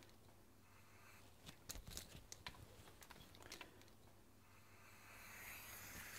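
Faint plastic clicks and crinkles as a non-rebreather oxygen mask and its tubing are handled, then from about four and a half seconds in a hiss of oxygen that grows steadily as the high-flow supply starts into the mask.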